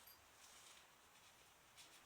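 Near silence: faint room tone with a couple of faint, brief scuffs.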